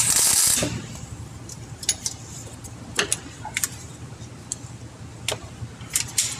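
Welding arc crackling in a short burst of under a second as a weld is laid on a broken bolt, followed by a few scattered sharp metallic clicks.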